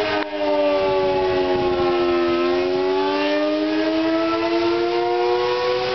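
Pole-mounted outdoor civil defense warning siren sounding a severe-weather alert, its tone falling slowly and then rising again. Wind and rain hiss underneath.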